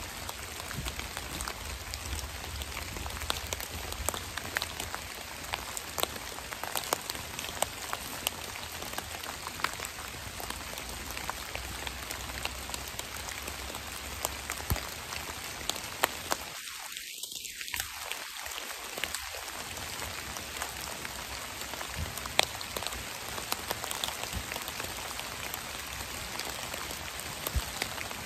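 Steady rain falling through the trees onto dry leaf litter, with many separate drops ticking close by.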